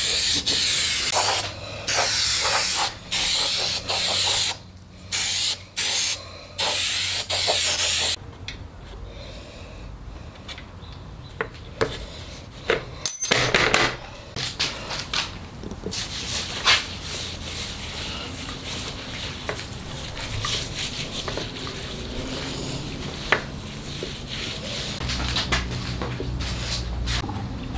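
Aerosol spray can hissing in several short bursts over a wooden board for about eight seconds, then quieter rubbing and small knocks of hands and tools working on the board.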